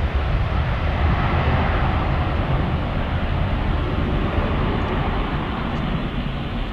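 Jet engines of a Southwest Boeing 737 at takeoff thrust during its takeoff roll: a steady, loud roar that eases slightly near the end as the jet moves away down the runway.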